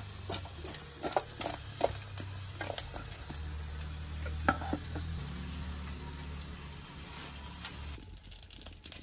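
Marinated fish pieces being handled and tossed in a steel bowl: a run of sharp clicks and clatters in the first couple of seconds and one more about halfway, over a steady sizzling hiss.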